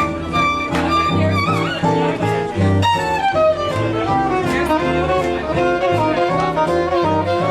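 Rhythm-and-blues music in an instrumental break, with no singing: a steady bass beat under a moving lead melody line.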